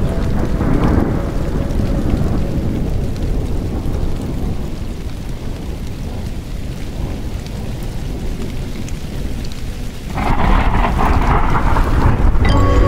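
Rain with rolling thunder: a deep low rumble under a steady hiss of rain, with the rain growing louder about ten seconds in.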